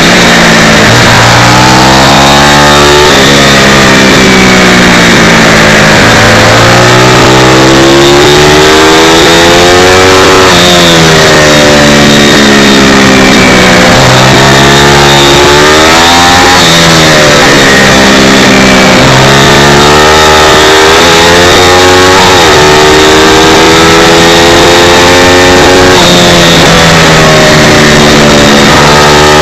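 Pit bike's small single-cylinder four-stroke engine heard up close from the bike, very loud, revving up hard again and again and dropping back in pitch between runs as it is ridden through the gears and into corners on a track.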